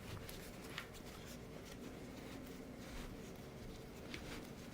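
Faint rustling and a few light clicks as a folded laptop stand is slid back into its carry bag.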